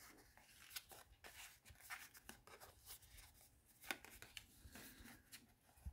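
Faint rustling and light clicks of a cardboard perfume-sample folder being handled, opened and folded shut, with a sharper tap about four seconds in.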